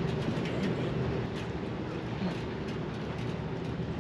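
A steady low mechanical hum, holding an even pitch, over a broad background rush.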